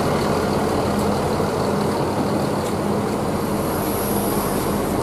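Mercedes-Benz OH 1626 coach's diesel engine idling steadily with an even low hum.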